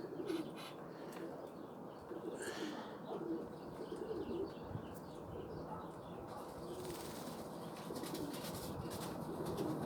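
Domestic breeding pigeons cooing repeatedly, soft wavering low calls, with faint scattered clicks and rustles.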